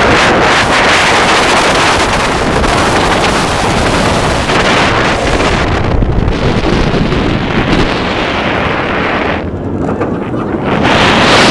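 Rushing wind over the microphone as the Kingda Ka roller coaster train runs at speed, over a deep rumble from the moving train. The rush thins out about nine and a half seconds in, then swells again just before the end.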